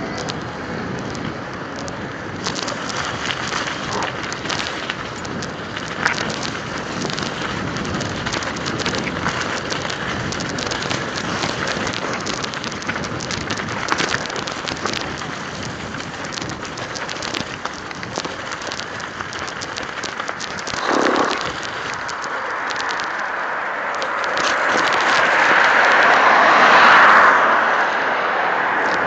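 Mountain bike ride recorded on a phone: wind buffets the microphone while tyres roll over a wet lane and then slushy, gravelly track, with scattered rattles and clicks from the bike. Near the end the noise swells as a car passes on the road alongside.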